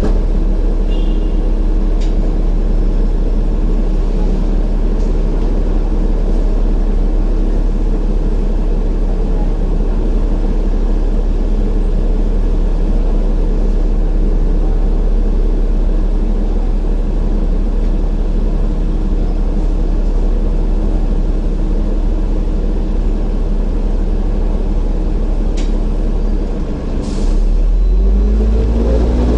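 Hong Kong double-decker tram standing at a junction with a steady low electrical hum. Near the end its traction motors start with a rising whine as it pulls away.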